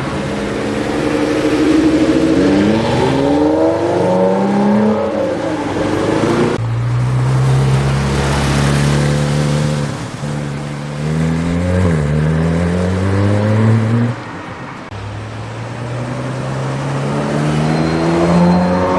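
Supercar engines accelerating and revving. The pitch climbs over the first few seconds, a deeper engine note cuts in suddenly about six and a half seconds in and steps up in pitch, the sound drops away abruptly near fourteen seconds, then builds again toward the end.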